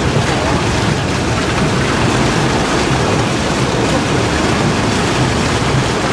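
Niagara Falls: a steady, unbroken roar of falling water.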